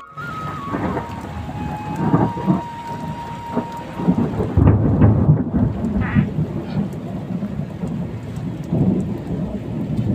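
Heavy rain falling, with thunder rumbling low and deep, loudest around the middle and swelling again near the end.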